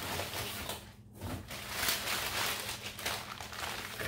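Crumpled white packing paper crinkling and rustling as it is handled and unwrapped, in irregular bursts, with a short lull about a second in.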